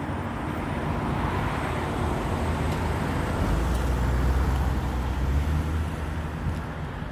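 Small wheels rolling steadily over asphalt up a slope. About halfway through, a car's engine comes close, adding a low hum that fades again near the end.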